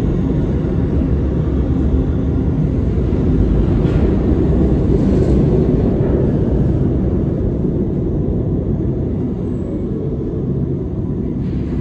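New York City subway train running through an underground station, a steady low rumble of wheels on rail.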